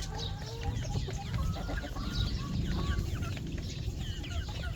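A flock of chickens clucking and calling, many short high calls overlapping one another, over a steady low rumble.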